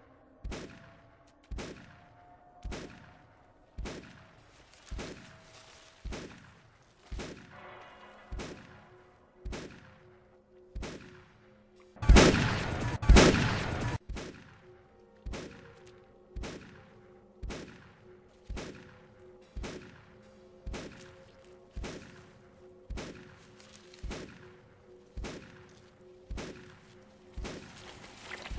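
Shotgun blasts repeating about once a second, each with a short fading tail, over a steady low drone. Two much louder blasts come about twelve and thirteen seconds in.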